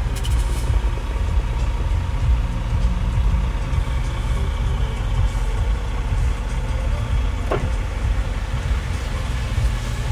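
Duramax 6.6-litre V8 turbo diesel idling, a steady low rumble heard inside the truck's cab.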